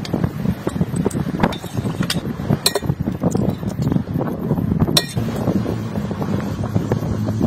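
A metal spoon scraping and clinking in an enamel bowl, then eggs tapped on the bowl and cracked, with a couple of sharp clinks. Steady wind rumbles on the microphone.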